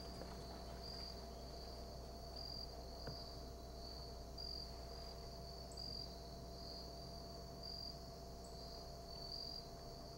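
Insect chorus in summer woods: a steady high-pitched trill that swells slightly at regular intervals.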